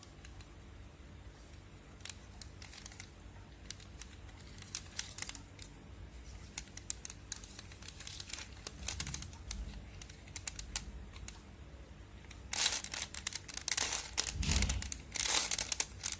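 Plastic Rubik's Cube being turned and handled: scattered light clicks and rattles of its layers twisting. The clicking grows denser and louder in the last few seconds.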